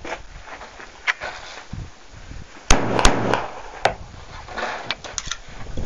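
Walther P38-based U.N.C.L.E. carbine firing live rounds: a few sharp shots in quick succession about halfway through, with smaller clicks and knocks around them.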